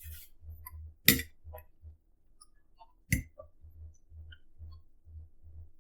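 Chewing close to the microphone, soft and intermittent, with two sharp clinks about two seconds apart, one about a second in and one about three seconds in.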